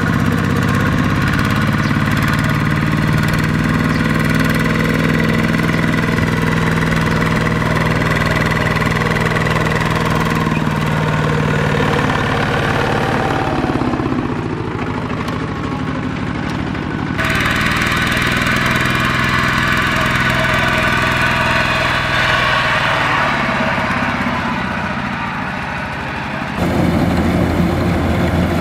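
Two-wheel walking tractor's single-cylinder diesel engine chugging steadily as it hauls a loaded trailer. The tone and level change abruptly three times.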